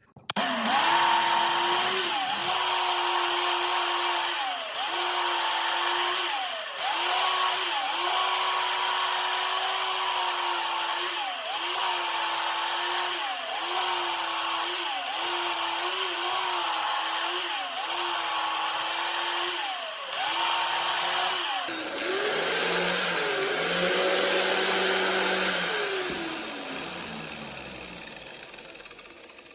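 Electric grinding or polishing tool working on metal. The motor starts up over a steady abrasive hiss, and its pitch sags briefly every second or two as it is pressed into the work. About twenty seconds in the sound changes to a higher whine, and near the end the motor winds down.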